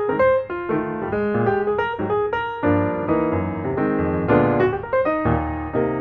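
Background piano music: a quick run of struck notes over chords.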